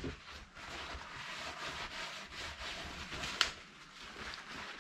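Kitchen paper towel rustling as a sheet is torn off the roll and rubbed over a car rear-view mirror, with one sharp click about three and a half seconds in.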